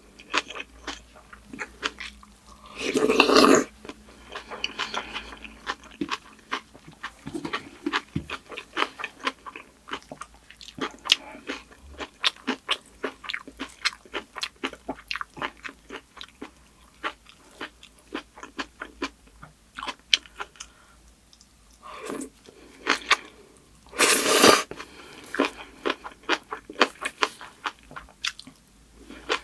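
Close-up chewing of kimchi and rice: rapid crunching and wet mouth clicks. Twice, about three seconds in and near the end, a louder short rushing noise.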